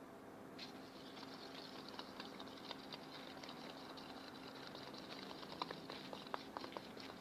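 Homemade slime being worked: a faint wet crackling with many scattered small clicks and pops, setting in about half a second in.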